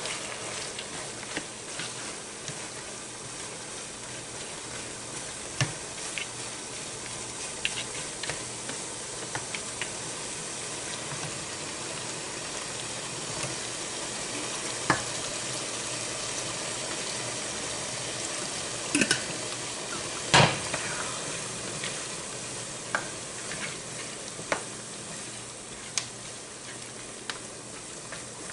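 Chicken and bora long beans sizzling in a frying pan, stirred with a spatula that scrapes and clicks against the pan. A few sharper knocks of the spatula on the pan stand out, the loudest a pair about two-thirds of the way through.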